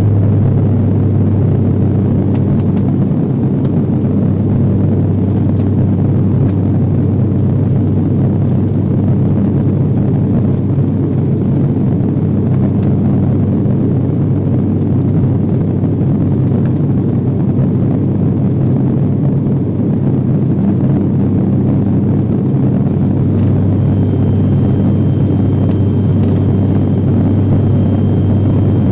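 Cabin drone of a Wings Air ATR 72-600 turboprop airliner, heard from inside the cabin: a steady low hum of the engines and propellers with a strong low tone and its overtones.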